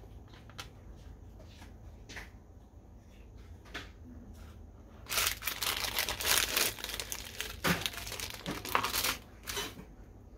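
Clear plastic parts bag crinkling loudly for about four and a half seconds as hands handle it and rummage the components inside, starting about halfway through. Before it there are a few faint light clicks.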